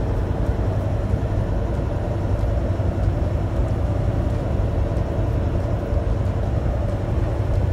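Semi truck cab noise at highway speed: a steady low drone of the engine and tyres on the road.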